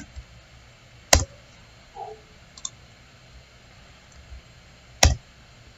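Two sharp clicks about four seconds apart, from a computer mouse being clicked while drawing in CAD software.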